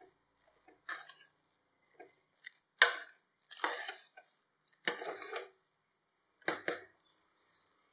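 A steel spoon mashing cooked rice and toor dal in a pressure cooker pot: a string of short scrapes and soft mashing strokes, with a sharp clink of spoon on pot about three seconds in.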